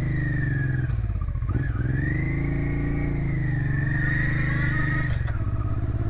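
1997 Honda NTV 650's V-twin engine pulling away along the road. Its note rises, drops about a second in, climbs again and drops once more near the end, as at gear changes.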